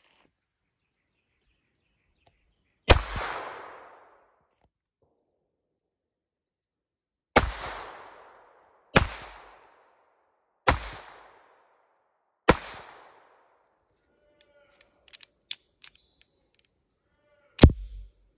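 Mauser 1910 pocket pistol in .25 ACP firing six single shots, each with a short echoing tail. The first shot comes alone, four follow about a second and a half to two seconds apart, then a few light clicks, and a sixth shot near the end, the loudest.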